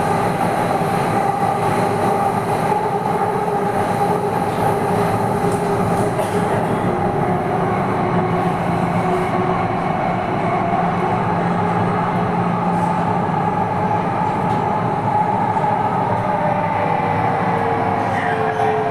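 Delhi Metro Pink Line train running, heard from inside the coach: a steady rumble of wheels on track with an electric motor whine. The whine drops slightly in pitch near the end.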